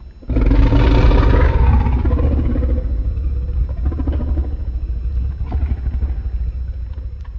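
Kaiju roar sound effect: a loud, growling roar that starts suddenly and falls in pitch over its first second or two, over a deep rumble that slowly fades out near the end.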